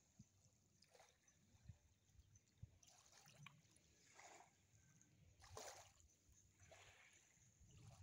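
Very faint small waves lapping on the shore of a calm sea: a soft wash every second or two, the strongest a little past halfway. A low wind rumble on the microphone lies underneath.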